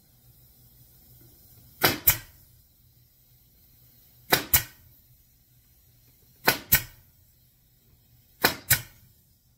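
Pneumatic 18-gauge narrow crown stapler driving 1-inch staples into pine boards: four shots, each a quick double crack, about two seconds apart.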